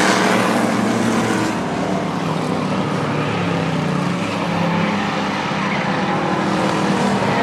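Several race car engines running at speed on a short oval track, their notes overlapping in a steady drone. The sound is loudest in the first second or so as cars pass close.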